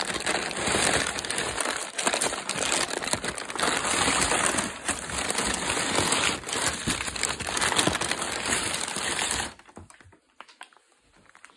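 Brown kraft packing paper crumpling and rustling as hands dig through it, with dense crackles that stop abruptly about three-quarters of the way through.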